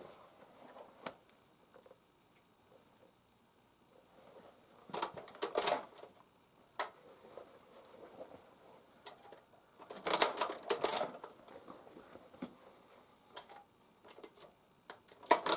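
Tippmann Boss hand-lever leather sewing machine clacking through stitches in a few short bursts with pauses between. The machine is binding up and missing stitches.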